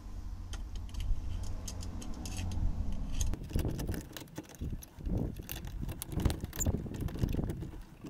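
Small metallic clicks and rattles as a refrigerator thermostat is handled and its arm is worked with a screwdriver, with a low steady hum in the first three or four seconds.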